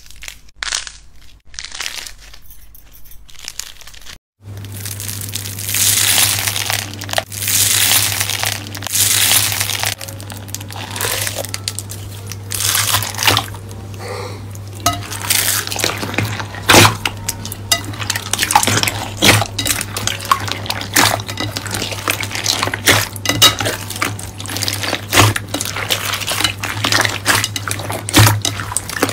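Hands squeezing soft white slime, then, after a cut about four seconds in, kneading and poking clear green slime packed with foam beads in a glass bowl. The slime and beads make a dense run of wet squishes, pops and sharp clicks over a steady low hum.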